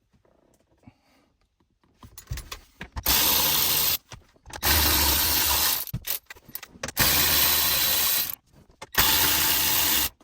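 Power drill-driver with a 7 mm socket running in four bursts of about a second each, backing out the four 7 mm fasteners that hold the factory radio screen in the dash.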